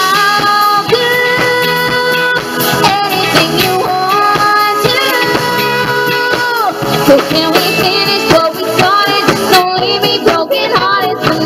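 Live pop-rock band playing a song: electric bass, drums and keyboards under a female lead singer, with long held notes.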